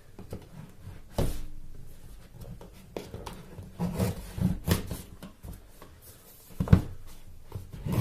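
A knife cutting the seal of a cardboard phone box, with rubbing and handling of the box on a wooden table. Several sharp knocks come through it, the loudest about two-thirds of the way in.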